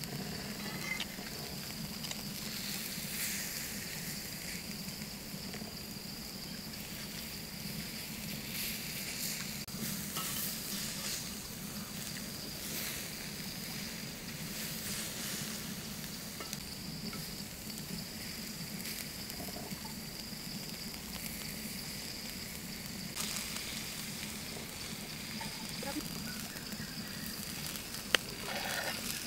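Pig's liver sizzling and frying on a hot stone, a steady sizzle with scattered crackles, under a thin, steady high-pitched tone. A single sharp click comes near the end.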